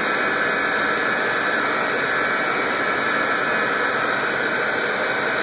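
Steady rushing noise of the goldfish tank's water pumps and aeration, with a faint high whine.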